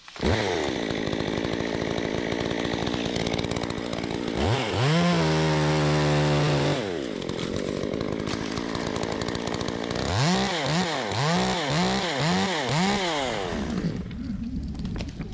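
Chainsaw running, held at full throttle for about two seconds midway, then revved in about six quick bursts before it dies down near the end.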